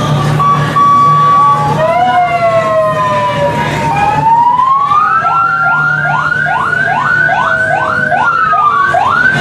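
Vehicle-mounted electronic siren running through its tones: a held steady tone, then gliding tones, then quick rising whoops about two a second from about halfway in, over the low steady running of engines.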